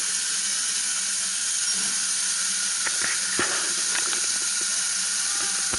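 GWR Manor-class 4-6-0 steam locomotive standing with steam hissing steadily from it, with a few light knocks and clanks about three to four seconds in.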